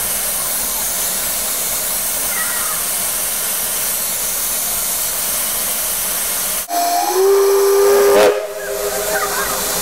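Abt rack steam locomotive venting steam with a steady loud hiss. About seven seconds in, a steam whistle sounds a chord of several tones for about a second and a half, then trails off.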